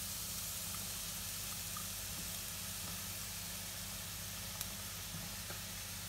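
Diced onion, courgette and mushrooms frying in a hot non-stick pan, a steady gentle sizzle over a low steady hum, with one short click a little over four and a half seconds in as the vegetables are tipped in from a plate with a spatula.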